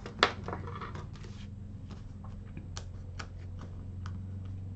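Light handling sounds of card-making: one sharper click shortly after the start, then scattered faint ticks and taps as cardstock and a pointed hand tool are worked on a craft mat, over a steady low hum.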